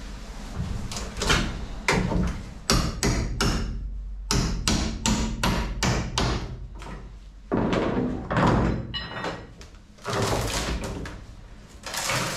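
Hammer blows knocking old fibreglass cladding off a wooden boat stringer: a run of sharp knocks, at one point about three a second, with a longer, noisier stretch of crunching and scraping a little past halfway as pieces break away.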